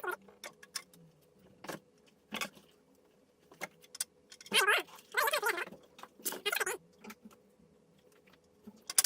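Short clicks and clattering of an ultrasonic humidifier's plastic parts and rubber stopper being handled. The sounds come in brief bursts with quiet gaps, the busiest about halfway through.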